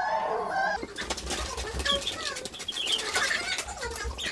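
Cocker spaniel puppies whining and squeaking, a drawn-out whine in the first second, then short high squeaks over a busy rustle and scrabble of paws and the fabric play pen as they are lifted in.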